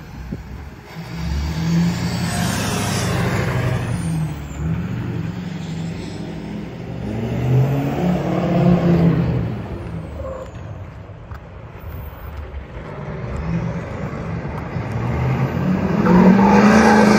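Hummer H1 being driven hard, its engine revving up and easing off in several surges. The loudest rev comes near the end as the truck comes back close.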